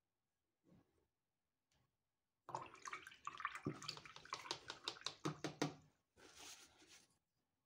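Paintbrush rinsed in a plastic jar of water, swishing and clicking against the sides for about three seconds, followed by a short rustle of a paper towel as the brush is wiped.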